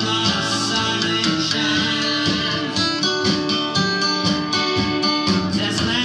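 A man singing into a microphone over a guitar accompaniment.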